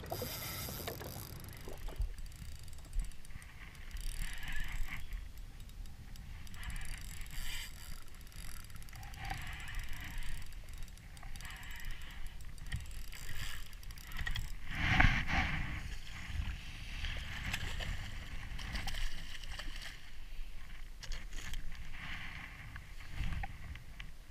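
Harbour water slapping and lapping against a jet ski's hull, with wind rumbling on the microphone, the hiss rising and falling every second or two. About fifteen seconds in there is one louder burst of noise.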